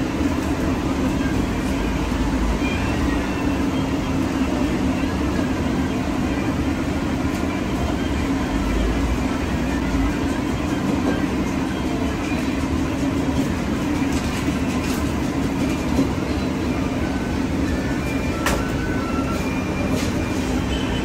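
Steady droning hum of running kitchen equipment, with a few sharp clicks of utensils over it, the clearest near the end.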